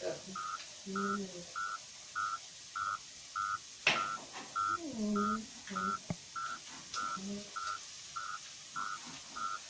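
An electronic beeper sounding short, even beeps at one pitch, about every 0.6 s. A single sharp clack comes about four seconds in.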